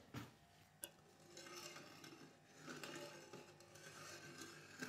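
Near silence: room tone, with a single faint click a little under a second in and faint soft sounds later, such as a steel ladle moving in a pot.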